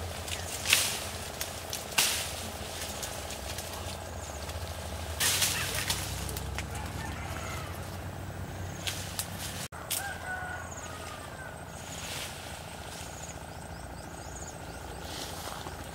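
Leafy vines and branches rustling and snapping as they are pulled apart by hand, with a few sharp cracks in the first six seconds, over a steady low hum. Short bird calls come in now and then.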